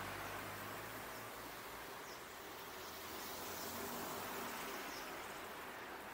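Roadside outdoor ambience: a steady hiss with a few faint, short high chirps scattered through it, and the low hum of a passing car that fades out after about a second.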